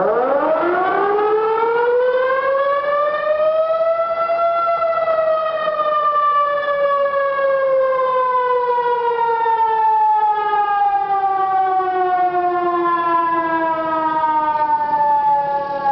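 Tsunami warning siren sounding one long wail. It starts suddenly, rises in pitch over about four seconds, then falls slowly through the rest of the time, with overtones above the main tone. It is the public signal of a tsunami warning to evacuate.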